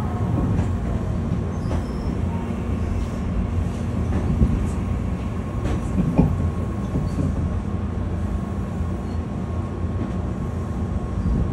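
Running noise inside a Meitetsu local commuter train car: a steady low rumble of wheels on rails, with a faint steady whine and a few light clicks.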